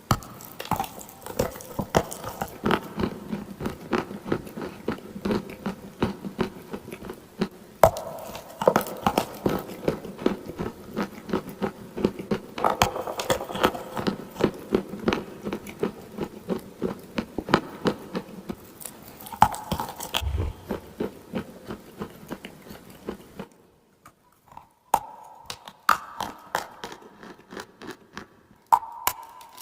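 Close-up crunching of dry clay: a dense run of crisp crunches that thins to sparser, separate crunches about three-quarters of the way through.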